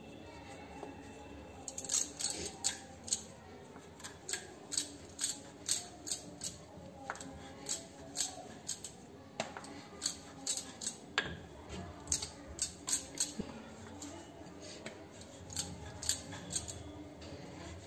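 Wooden rolling pin rolling out a rice-flour roti on a stone countertop. From about two seconds in there is a run of sharp clicks, roughly two or three a second, as the pin goes back and forth.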